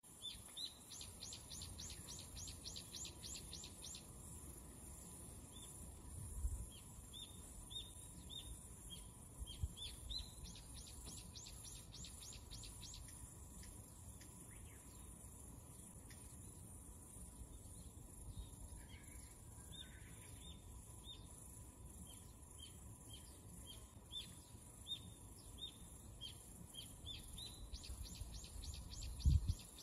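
Birds singing: runs of rapid, high, falling notes lasting a few seconds each, with shorter chirps repeated between them. A low rumble runs underneath, with a few thumps, the loudest just before the end.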